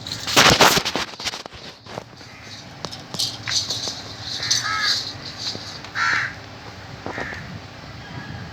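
A loud rattling noise burst about half a second in, then three short harsh animal calls spaced over the following seconds.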